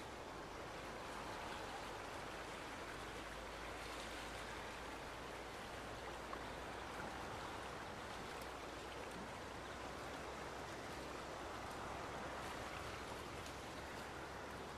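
Steady rush of a stream's running water.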